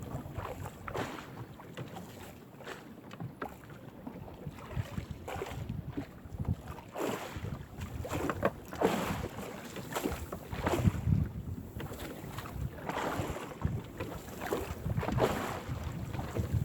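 Wind buffeting the microphone on a small fishing boat at sea, with irregular splashes and rustles of water around the hull.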